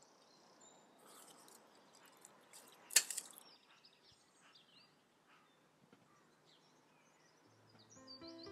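Faint outdoor garden ambience with small bird chirps and one short, sharp sound about three seconds in. Music with steady held notes fades in near the end.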